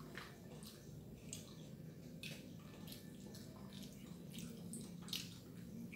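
Close-up wet eating sounds: mouth chewing and lip smacking, short moist clicks several times a second, one sharper click about five seconds in, over a low steady hum.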